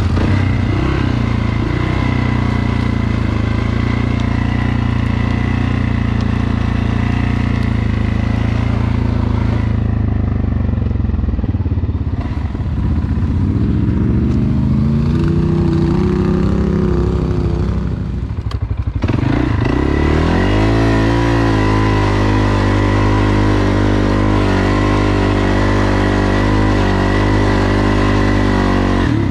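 ATV engine running under throttle. Its pitch is steady at first and climbs about halfway through. It drops away briefly about two thirds of the way in, then rises again and holds steady.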